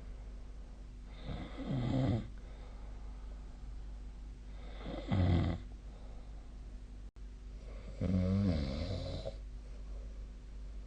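A sleeping person snoring: three snores about three seconds apart, the last one the longest, over a steady low hum.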